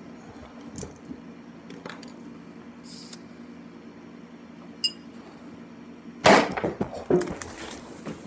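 Champagne bottle being opened: small metallic clicks as the wire cage is worked off the cork, then about six seconds in a loud sudden pop as the cork blows out, followed under a second later by another sharp knock and clatter. A steady low hum runs underneath.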